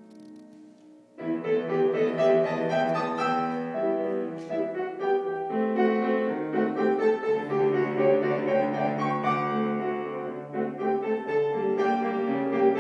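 Solo grand piano playing classical music: soft held notes, then about a second in a sudden loud, dense passage of many notes.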